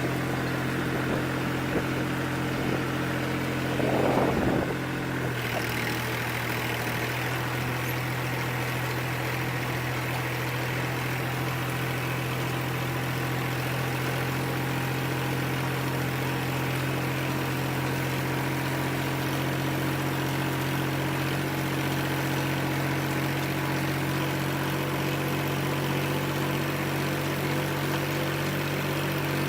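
Farm machine's engine running steadily at a constant speed, with a brief louder swell of sound about four seconds in.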